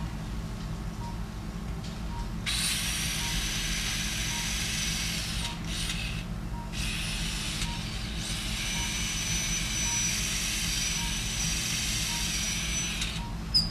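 High-pitched whine of a powered surgical drill boring a pilot hole in bone for a suture anchor. It starts about two and a half seconds in, cuts out briefly a few times in the middle and stops near the end, followed by a sharp click.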